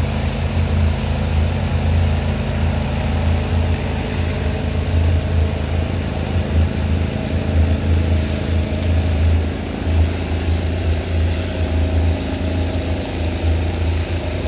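Landa PGDC 4-3000 gas pressure washer running steadily: a constant low engine hum under a steady hiss.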